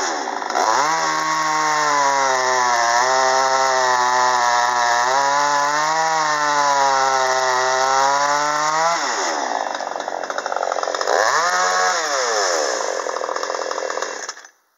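Ported Chinese-made two-stroke chainsaw revving up and cutting through a log, its engine note wavering slightly under load for about eight seconds before dropping back. A second short rev follows, then the sound cuts off sharply near the end.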